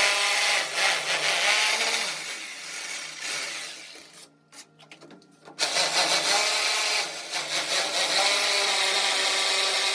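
A power tool running under load, dying away about four seconds in and starting again sharply a second and a half later.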